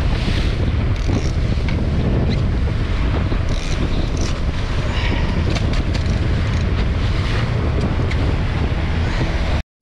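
A 115 hp outboard motor running steadily as the skiff moves across open water, with water rushing along the hull and wind buffeting the microphone. The sound cuts out for a moment near the end.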